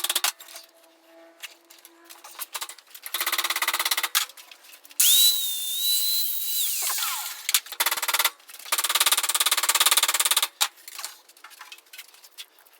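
A power tool worked on sheet metal in several short bursts, with quieter clicks and knocks in the gaps. The loudest burst, near the middle, carries a high steady whine that falls away as the tool winds down.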